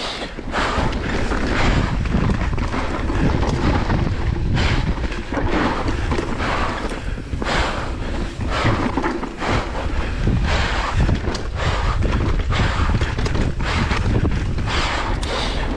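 Wind buffeting the microphone over the rumble and clatter of a mountain bike riding down a rough dirt trail, with frequent sharp knocks as it hits bumps.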